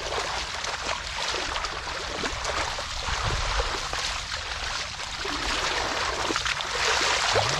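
Hands squelching and scooping through wet mud and shallow water while digging for catfish, a steady wet crackling and sloshing.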